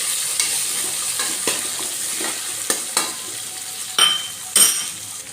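Onions, ginger-garlic paste and fresh herbs sizzling in hot oil in a pan while a spatula stirs them, with short scraping strokes against the pan. Two sharper, louder scrapes come about four seconds in, and the sizzle drops lower near the end.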